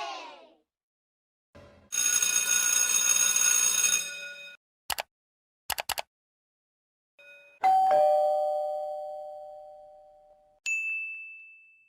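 A string of separate sound effects. A steady buzzing tone lasts about two and a half seconds, followed by a few short clicks. Then comes a two-note ding-dong doorbell chime that rings out for a few seconds, and a short high ding near the end.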